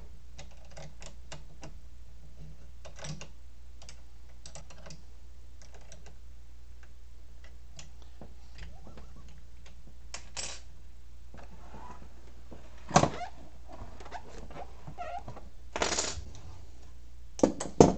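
Hands handling and fitting the print-head parts of an Elegoo Neptune 4 3D printer: a run of small clicks and taps, with a few louder knocks about two-thirds of the way through and near the end, over a steady low hum.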